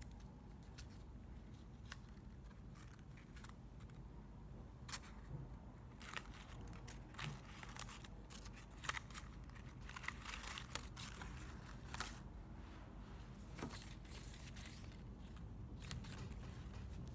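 Paper rustling and crinkling as strips of coloured paper are folded into concertina springs and handled. Irregular soft crackles and clicks, busiest in the middle.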